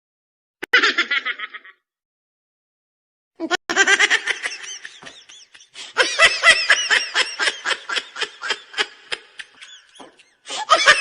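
Laughter sound-effect clips: a short burst of laughing about a second in, then a long run of rapid laughing, and another laugh starting near the end, with dead silence between the clips.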